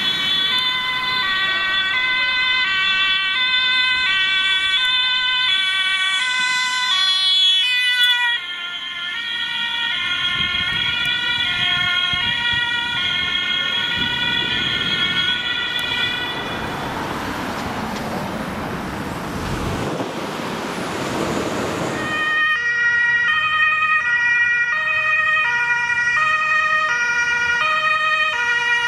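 Two-tone emergency vehicle sirens (German Martinshorn) switching between two notes about every half second. The siren drops out in the middle for several seconds of road and traffic noise. An ambulance's two-tone siren starts about three quarters of the way through.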